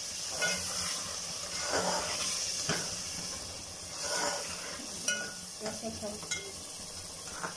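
Pea and onion masala sizzling in a metal pot as freshly added yogurt is stirred in with a slotted metal spatula. There is a steady frying hiss, and the spatula scrapes and knocks against the pot every second or so.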